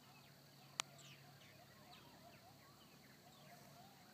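Faint, distant coyotes yelping and howling in wavering calls, with scattered short chirps from purple martins circling overhead. A single sharp click about a second in is the loudest sound.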